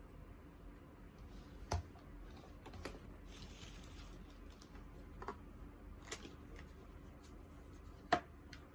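Scattered light taps and clicks, about five spread over several seconds with the loudest near the end, and a brief soft rustle a few seconds in: small objects being handled and set down on a hard surface.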